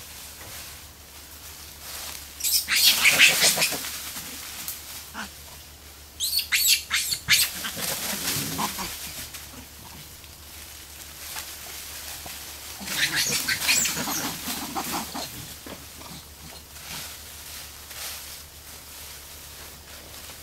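Formosan rock macaques making three loud bursts of sound a few seconds apart, each one to three seconds long.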